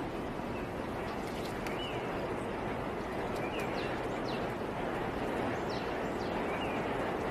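Steady splashing and churning of pool water as sea otters roll and scrub themselves, with a few short, high chirps scattered through it.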